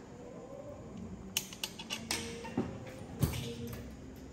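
Light knocks and taps, about half a dozen over two seconds with the loudest near the end, as a young pet monkey clambers from the dining table up onto the kitchen counter with a metal spoon in its hand.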